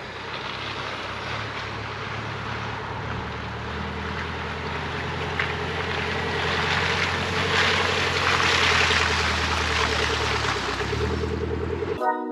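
Small four-by-four engine running at low revs as the vehicle drives slowly over grass toward the camera, with tyre and wind noise growing louder, peaking about two-thirds of the way in, then easing off.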